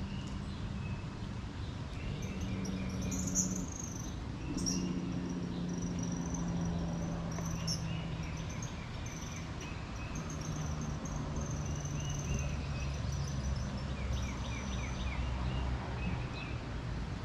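Wild birds calling and chirping outdoors: short high calls and quick runs of chirps keep coming throughout. Under them runs a low steady drone that changes pitch every few seconds, like a distant motor.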